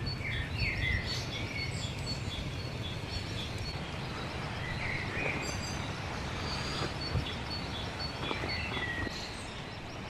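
Birds chirping now and then over steady outdoor background noise, with short falling calls near the start, about halfway and again near the end.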